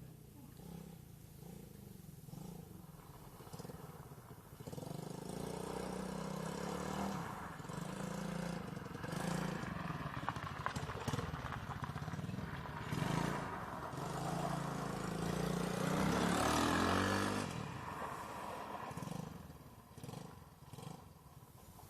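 Small ATV engine running, its pitch rising and falling with the throttle. It gets louder about five seconds in, is loudest around sixteen seconds in, then fades.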